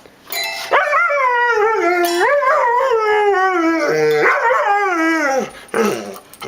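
A dog howling: one long wavering howl lasting about five seconds, sliding down in pitch as it ends, then a short bark near the end.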